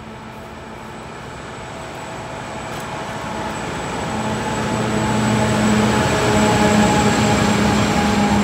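Diesel freight locomotive approaching at the head of a train of open wagons: its engine drone and the rumble of the wheels grow steadily louder through the first half, then hold loud as it draws level.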